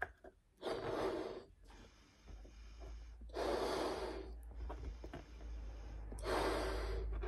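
Someone blowing up a 9-inch party balloon by mouth: three long breaths pushed into the balloon, each about a second long, with quieter pauses between them as she breathes in.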